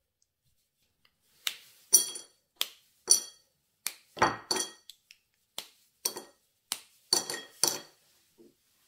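A dark chocolate bar snapped into squares by hand, the pieces dropping into a glass bowl: about a dozen sharp snaps and clinks, some ringing briefly, over some six seconds.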